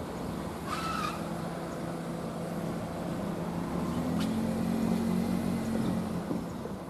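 Road traffic at a level crossing: a motor vehicle passing, its engine note growing louder and then fading, with a short squeal about a second in.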